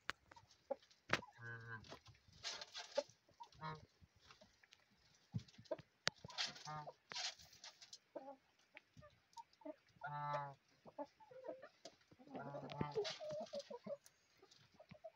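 Chickens clucking in a coop: scattered short clucks and calls, with light taps in between and a longer call about ten seconds in.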